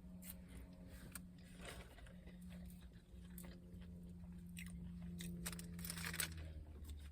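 Close mouth sounds of someone chewing and biting into a McDonald's McDouble cheeseburger, with scattered soft clicks and smacks, over a faint steady low hum.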